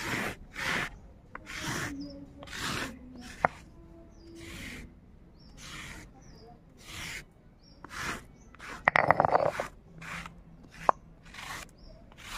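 Stone muller rubbed back and forth on a stone grinding slab (sil-batta), grinding wet spice paste: a rasping stroke about once a second, with a louder, longer scrape about three-quarters of the way through.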